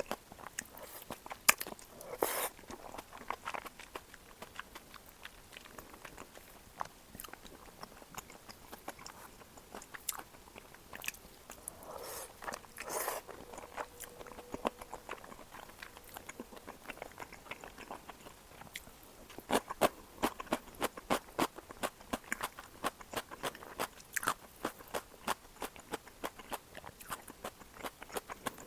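Close-miked ASMR eating sounds: a person chewing cream tteokbokki, with many sharp, wet mouth clicks. The chewing turns into a denser, louder run of clicks about twenty seconds in.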